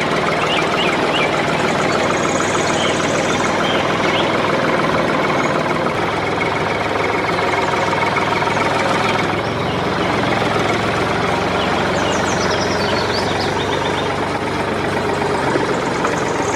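Tractor engine running steadily at an even idle-like pace.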